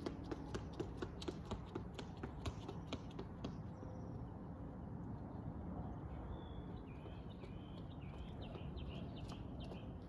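Running footsteps on concrete stairs: quick shoe strikes about three to four a second, stopping about three and a half seconds in. Later a bird chirps a run of short calls over a steady low outdoor rumble.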